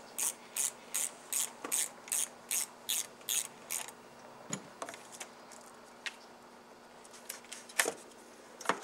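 Socket wrench ratchet clicking as the 10 mm nut on a 12V car battery's negative terminal is loosened: a steady run of clicks, about two and a half a second, stopping about four seconds in. After that come a few scattered clicks and knocks as the terminal is handled.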